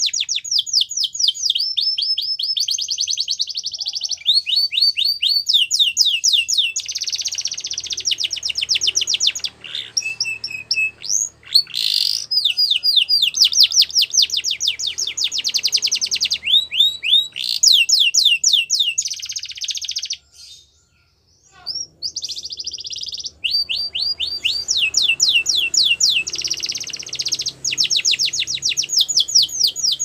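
Yellow domestic canary singing a long song made of fast trills, each phrase a rapid run of repeated notes that changes to a new note type every second or two. The song breaks off briefly about two-thirds of the way through, then starts again.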